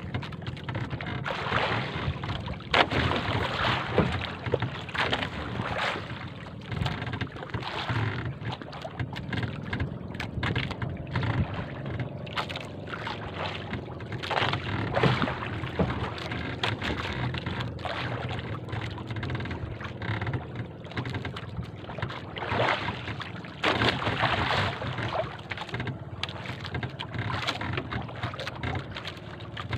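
Small outrigger fishing boat under way: a steady low engine drone, with water rushing and splashing along the hull and wind on the microphone.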